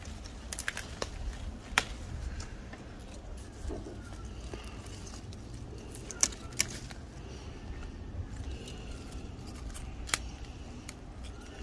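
Sweet pepper stems snapping as ripe red peppers are picked by hand: a handful of short, sharp snaps, two close together near the start, two more around the middle and one near the end, over a low steady rumble.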